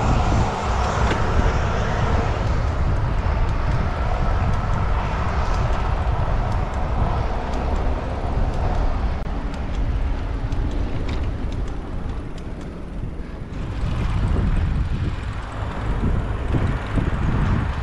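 Wind buffeting the microphone of a bicycle rider's camera on the move, with road and traffic noise underneath. The rumble is steady, eases briefly about two-thirds of the way in, then picks up again.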